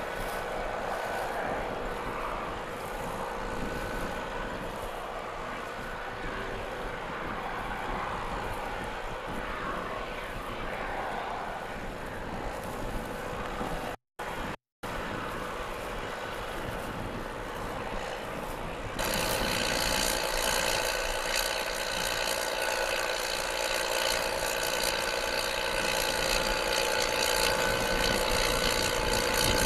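Case tractor's diesel engine running under load while pulling a plough: a steady drone. It cuts out twice for a split second about halfway through, and from about two-thirds of the way in it is louder, with a higher whine on top.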